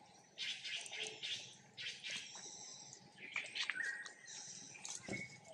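Short high-pitched animal calls and chirps, some held briefly as steady whistles, with scattered rustling.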